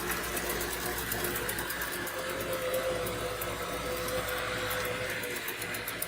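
ILIFE A4s robot vacuum running in edge-cleaning mode, its motors making a steady hum as it follows along an edge, with a faint steady tone coming in about two seconds in.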